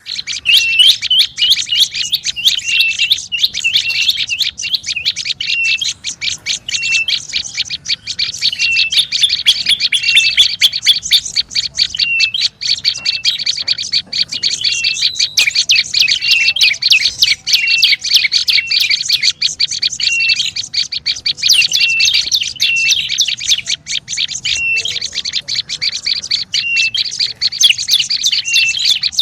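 Prenjak lumut calling busily: a loud, rapid, continuous chatter of sharp clicky notes, with a short higher note repeated about once a second. This is the kind of recording played as a lure to draw prenjak birds in.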